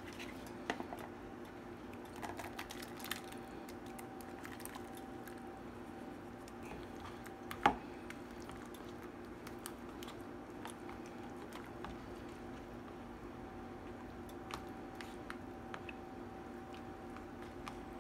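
Metal spoon stirring and scooping cooked strawberries in sugar syrup: wet squishing with scattered clicks of the spoon against the saucepan and plastic bowl, and one sharp clink a little before the middle. A steady low hum runs underneath.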